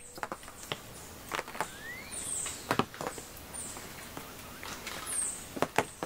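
Light, irregular rustles and clicks in dry leaf litter, with a few faint high chirps and a short rising whistle about two seconds in.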